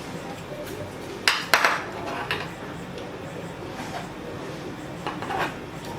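Hand saddle-stitching of leather: sharp clicks and short scraping sounds from the needles and the thread being drawn through. The loudest pair comes a little over a second in, with more near the end, over a steady background hum.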